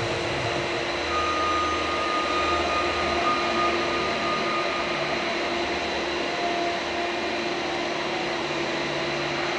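Steady machinery drone with a rushing noise and a few held tones, like large ventilation fans or equipment running in a big hall. A thin high tone sounds for about three seconds, starting about a second in.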